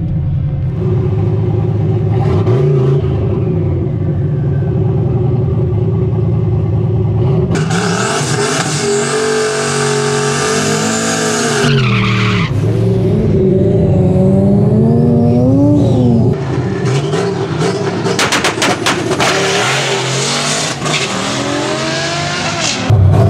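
Turbocharged 363 stroker V8 in a Fox-body Mustang revving up and down through a burnout. The rear tyres spin and squeal for about five seconds with the engine held high. After that the engine revs and settles, there is a run of sharp crackles, and the sound jumps louder just before the end.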